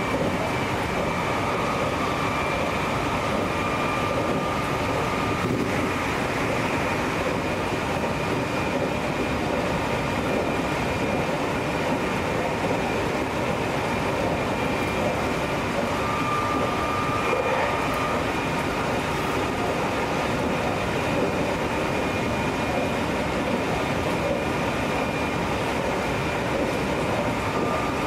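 Meitetsu 2200 series electric train running, heard from inside a passenger car: a steady rumble of wheels on rail, with a faint high whine that comes and goes.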